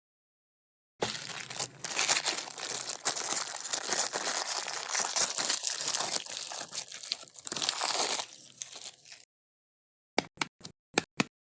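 Meat grinder crushing food: a dense crackling crunch that starts about a second in, runs for about eight seconds and cuts off suddenly, followed near the end by five short clicks.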